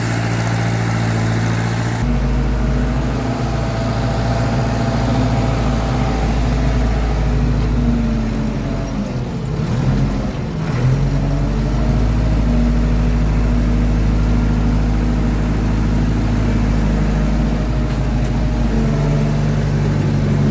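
Backhoe loader's diesel engine running steadily. About halfway through, its pitch dips briefly and climbs back up.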